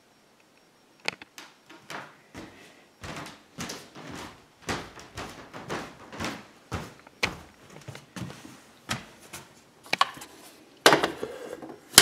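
Handling noise of a handheld camera being picked up and moved around: a run of irregular knocks and rustles, with louder knocks near the end.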